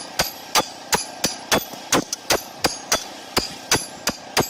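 Hammer blows in a steady, even rhythm, about three a second, each with a short metallic ring.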